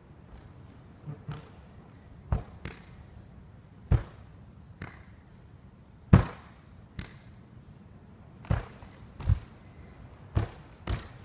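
Bare feet stamping on wooden floorboards: about a dozen irregular heavy thuds, some in quick pairs, the loudest about halfway through.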